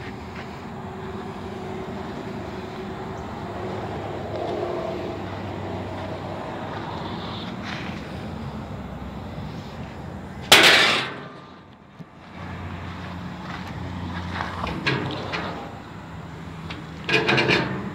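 Handling noise around a steel smoker trailer: a loud sudden clank or bang about ten seconds in, then a few sharp metallic knocks near the end, over a steady low background hum.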